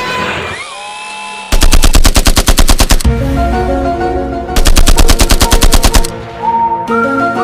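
A multi-tone 'Basuri'/telolet vehicle horn playing a melody of stepped notes. About one and a half seconds in, and again around four and a half seconds, the notes break into a rapid rattling stutter of many pulses a second.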